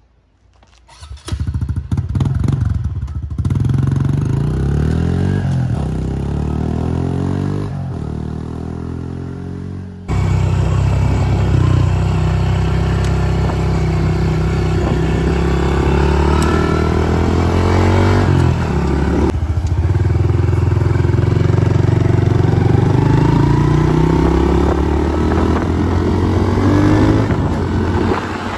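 2020 Honda CRF110F pit bike's small single-cylinder four-stroke engine starting about a second in and revving. About ten seconds in the sound jumps abruptly to the bike under way, its pitch climbing and dropping again and again as it accelerates.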